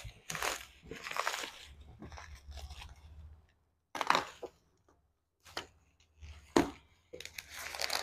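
Plastic bubble wrap being cut with a box cutter and pulled off a cardboard box. It rustles and crinkles in broken bursts, with two sharp snaps, one near the middle and one later.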